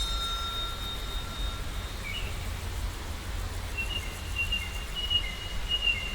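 Birds chirping in short, high calls, starting about two seconds in, over a steady low rumble of outdoor ambience.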